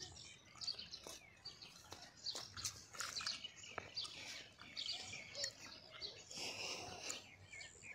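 Small birds chirping: many short, high calls overlapping, busiest near the end.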